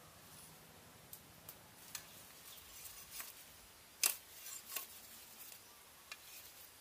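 Sparse light clicks and snaps of twigs and bamboo being handled, the sharpest about four seconds in.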